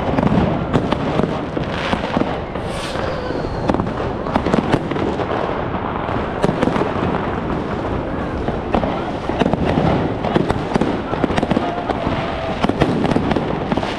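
Fireworks going off in a dense, unbroken string of bangs and crackles, with a short gliding whistle about three seconds in.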